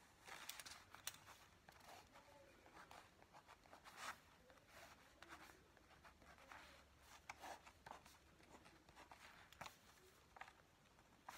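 Pen scratching faintly on paper while drawing, in short, irregular strokes.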